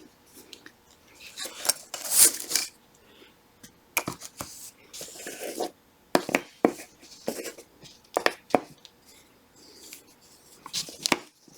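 Small shifter parts being handled and set down on a work surface: scattered clicks, light knocks and short rustles with quiet gaps, the loudest a brief scraping rustle about two seconds in.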